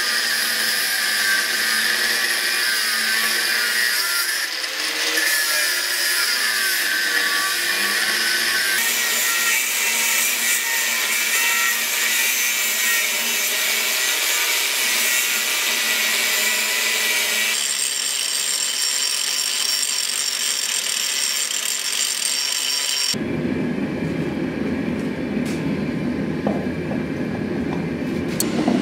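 Angle grinder with a thin cut-off disc cutting a steel bar clamped in a vise: a steady, high-pitched grinding hiss whose pitch shifts a couple of times. About 23 seconds in it gives way to the steady, lower rushing sound of a gas forge's burner.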